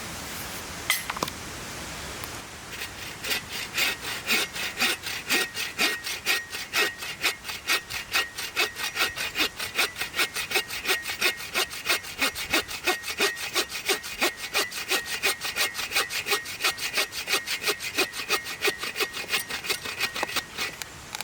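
Hand saw cutting through wood in fast, even back-and-forth strokes that start about two and a half seconds in and stop near the end, after a couple of sharp knocks about a second in. Steady river rush underneath.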